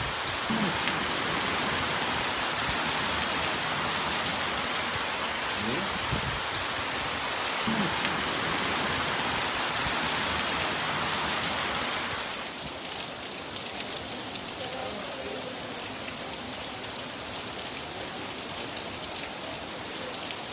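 Heavy rain pouring down, a dense steady hiss; about twelve seconds in it cuts to a softer, duller rain.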